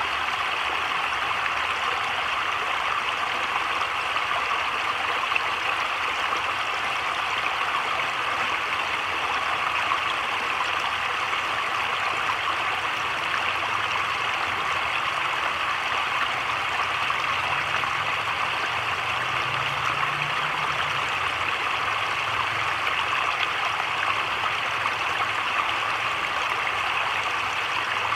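Heavy rain falling steadily on a creek and the surrounding foliage, an even hiss with no thunder.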